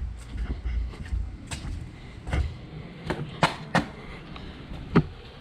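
Irregular sharp clicks and knocks, about seven in all and unevenly spaced, over a low rumble.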